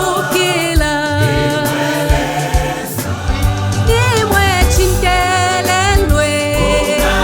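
Gospel song: a choir and a solo voice singing over bass and drums.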